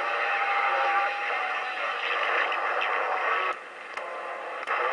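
Sharp CB-2460 CB radio receiving AM through its loudspeaker: band static with a few steady whistling tones and no clear voice. About three and a half seconds in, the signal drops as the channel knob is turned to the next channels, with a few short clicks.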